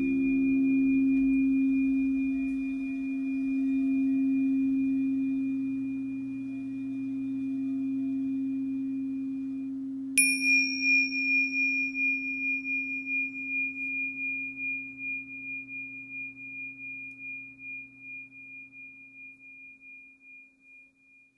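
A crystal singing bowl rings low, near middle C, with slow swells as it fades out, under a steady high ringing tone. About ten seconds in, a high-pitched bell-like instrument is struck sharply. It rings on with a fast pulsing and dies away near the end.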